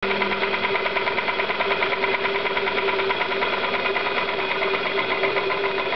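Stuart D10 model marine steam engine with Stephenson link reversing gear running steadily on the bench with a fast, even mechanical beat, on its first running-in trial.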